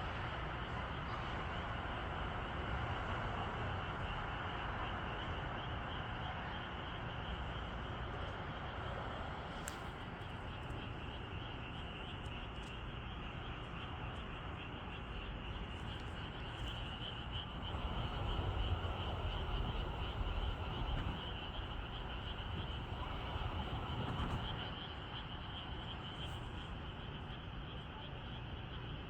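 A chorus of frogs calling steadily, a dense, finely pulsing chorus with a low rumble underneath.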